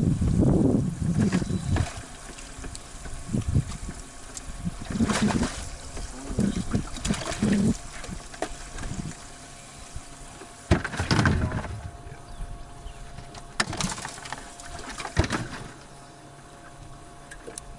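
Water lapping against a boat hull, with scattered knocks and clatters of fishing gear being handled on the deck and a faint steady hum underneath.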